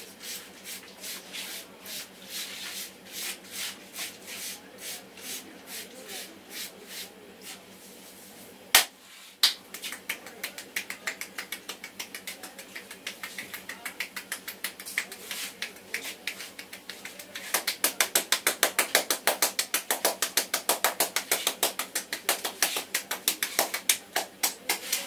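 Hands tapping and slapping rhythmically on a head during an Indian head massage: steady quick taps, then a sharp snap about nine seconds in, then faster taps that grow louder in the last third.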